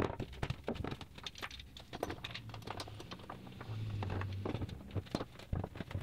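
Irregular light knocks and clicks of hand work on melamine-faced plywood cabinet panels: a bar clamp being tightened on a back panel and a wooden mallet being put down.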